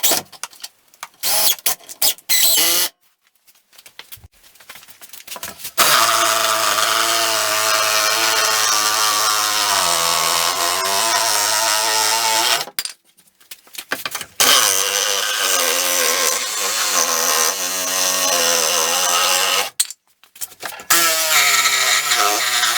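Power tool motor running on wood: a few short blips, then three long runs of several seconds each, its pitch sagging as it comes under load.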